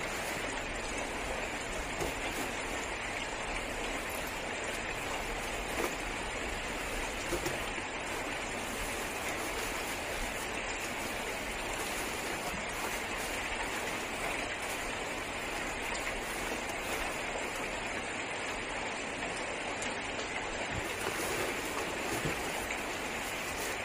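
Heavy rain falling steadily on the car's roof and body, heard from inside the cabin as an even wash of noise.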